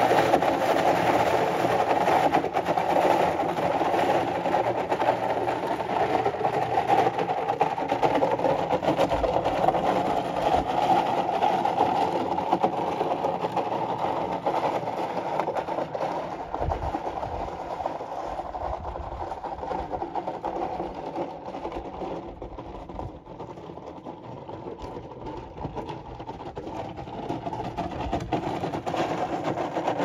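Tennessee Walking Horse's hooves crunching on gravel in a quick, steady rhythm. It fades as the horse moves away and grows louder again near the end as it comes back toward the listener.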